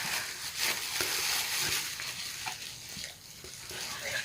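Packaging being handled: an irregular crinkling rustle with small clicks.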